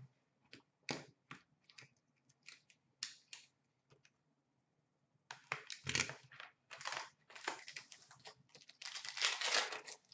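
Plastic shrink-wrap being torn and crinkled off a hockey card box, after a few seconds of scattered light clicks and taps from handling the box. The crinkling starts about five seconds in and keeps up near the end.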